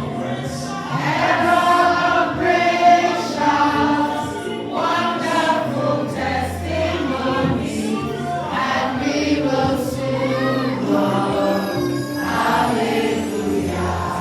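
A choir singing gospel music.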